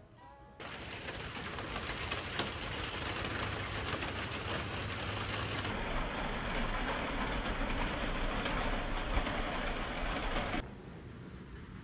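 Steady rain, heard as an even hiss with no distinct events. The sound changes character about halfway through and becomes much quieter near the end.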